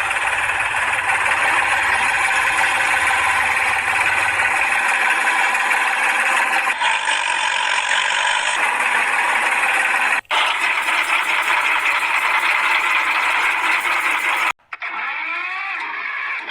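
Small motor of a DIY model machine running steadily with a rattle. It cuts out abruptly twice, and near the end a quieter whir with sliding pitch follows.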